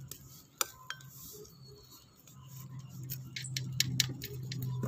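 A metal spoon clicking and tapping against a metal tray while seasoning paste is spread over satay skewers: irregular sharp ticks, more frequent in the second half, over a steady low hum.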